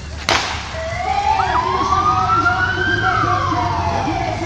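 Emergency vehicle sirens starting up right after a countdown. A sharp crack comes just after the start. Then a wailing siren rises slowly in pitch for about two seconds, falls, and begins to rise again, with a fainter, higher siren gliding alongside it.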